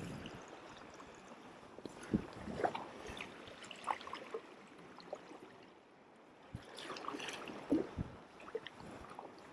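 Sea kayak paddling in calm water: soft splashes and drips from the paddle blades, in two bunches with a brief quiet spell between.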